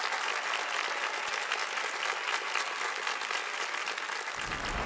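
Studio audience applauding, a dense, steady run of many hands clapping.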